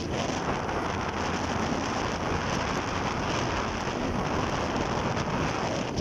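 Steady rushing hiss of a moving vehicle on a wet road: tyres on wet tarmac mixed with wind on the microphone.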